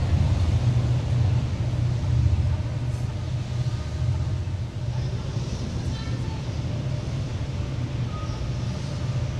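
Street traffic: a steady low rumble of car engines and tyres, loudest in the first couple of seconds and easing slightly after.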